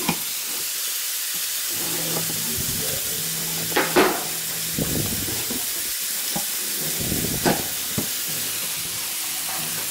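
A kitchen knife slicing through packing tape on a cardboard box, then the cardboard flaps scraping and rustling as they are pulled open, with sharp scrapes about four seconds in and again near seven and a half seconds. A steady hiss runs underneath.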